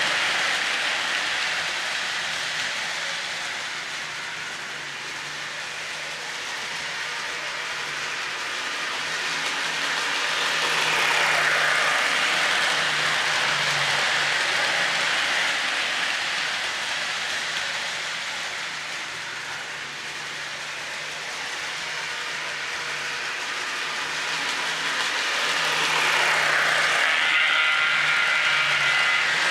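Lionel O-gauge model train (Chessie EMD SD9 diesel with freight cars) rolling around a toy track loop: a steady wheel-and-rail rattle and clatter with a faint low hum, swelling each time the train passes close, twice, about 15 seconds apart.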